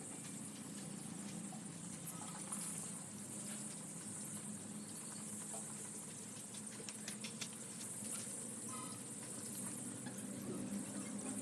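Broiler chicks chirping in short bursts over a steady low hum, with a few faint clicks.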